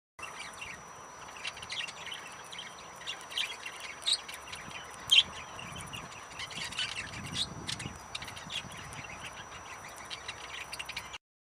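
Budgerigars chirping and squawking in many short high calls, one sharp call about five seconds in standing out as the loudest.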